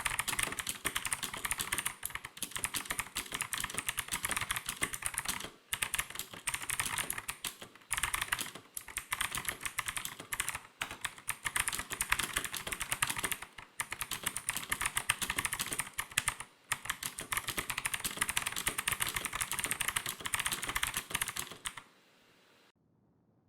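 Typing on a Gigaware K26 full-size mechanical keyboard: a fast, continuous clatter of key clicks, broken by a few brief pauses, that stops about a second and a half before the end.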